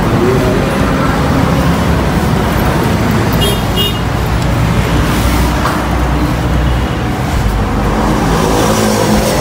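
Steady background rumble of motor-vehicle traffic, with a short high chirp about three and a half seconds in.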